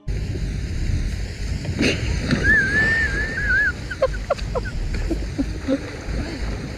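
Wind rumbling on the microphone, with a sudden splash about two seconds in as a man is knocked into the water. A high wavering call follows, then a few short vocal sounds.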